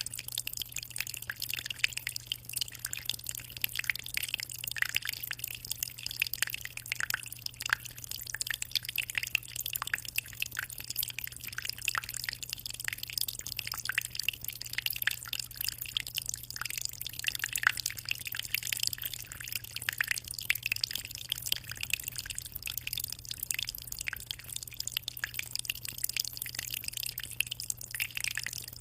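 Water in a 60-liter aquarium flowing and trickling, a continuous dense patter of small splashes and drips, over a steady low hum.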